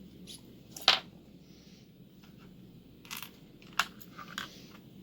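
Handling of a lock and its tools: a few sharp, short clicks and taps, the loudest about a second in and a cluster between three and four and a half seconds, as a follower is readied to push out the lock's core.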